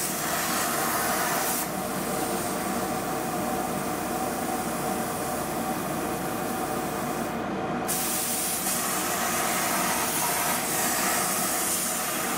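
Hand-held air plasma cutter cutting steel on a down-draft table, a steady hiss over the steady hum of the table's fume-extraction blower. The upper hiss thins about two seconds in and comes back strongly near eight seconds.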